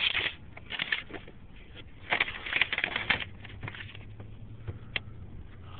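Objects being rummaged through and handled: bursts of rustling and clattering, with a single sharp click near the end.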